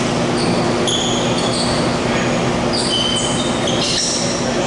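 Basketball shoes squeaking on a hardwood court: many short, high squeaks, thickest near the end, over a steady rush of air with a low hum from a large drum fan.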